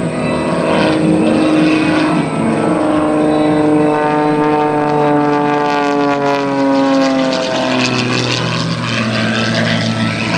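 Super Chipmunk aerobatic plane's piston engine and propeller running hard, its stack of tones sliding steadily down in pitch for a few seconds around the middle, then settling at a lower, steady note.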